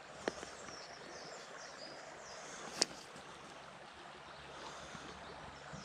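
Shallow stream water running steadily, with two sharp clicks, a small one just after the start and a louder one nearly three seconds in.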